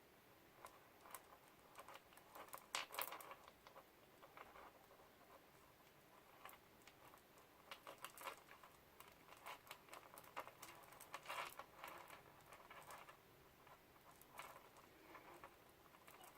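Faint, irregular small clicks and light rustling of beads being handled and threaded onto elastic stretch cord.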